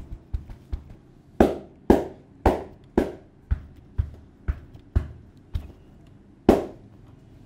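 Hands slapping the head and shoulders in a percussive Indian head massage. A quick light patter gives way to firm slaps about two a second, with one last hard slap near the end.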